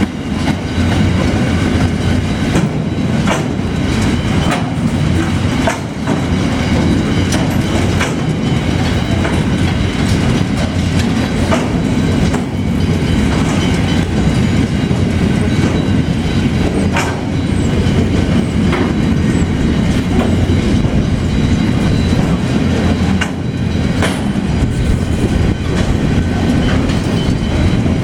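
Freight train rolling steadily past at close range, a continuous rumble with the wheels clacking over rail joints at irregular intervals.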